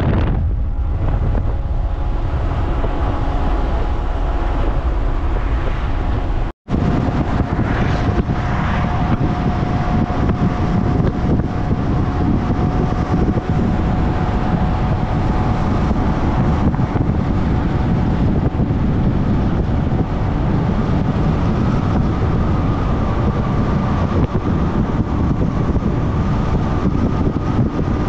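Steady road and wind noise of a car driving at speed on a highway, with wind rumbling on the microphone and a faint steady tone. The sound cuts out completely for a moment about six and a half seconds in.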